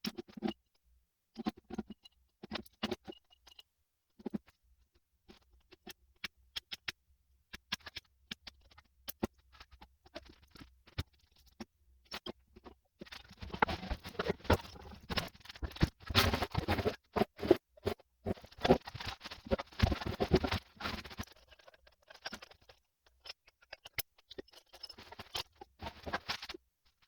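Hand tools and metal parts being handled during A/C compressor clutch work: scattered clicks and light knocks, with a longer busy stretch of scraping and rattling about halfway through.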